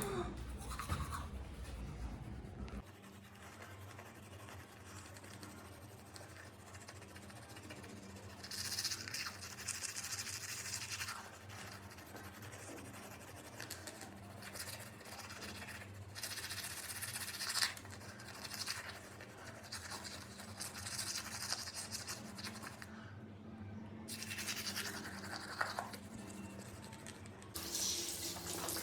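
Toothbrush scrubbing teeth in several spells of brushing with short pauses between them.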